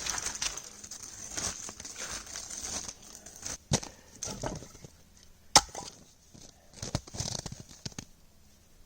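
Crunching and rustling of someone moving about in snow and handling gear, busier in the first half, with a few sharp cracks spread through the middle.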